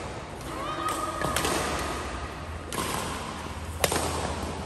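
Badminton rackets striking a shuttlecock in a doubles rally: several sharp hits about a second or more apart, with sports shoes squeaking briefly on the court floor.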